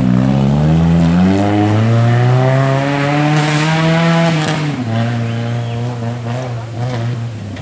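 Off-road vehicle's engine revving hard: its pitch climbs steadily for about four seconds, drops suddenly, then holds at a lower, steady pitch.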